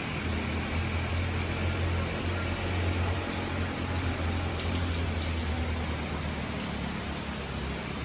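Steady rain falling on rainforest foliage, with scattered single drops ticking. Under it a low steady hum, the loudest part of the sound, weakens after about six seconds.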